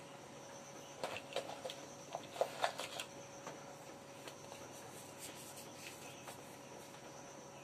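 Light rustling and a cluster of small clicks, mostly one to three seconds in, as towels in a plastic basin are handled and baking soda is sprinkled over them; a few fainter clicks follow.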